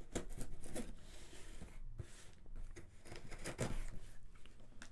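A cardboard shipping box being cut and pulled open with a knife: an irregular run of scrapes, clicks and cardboard rustles.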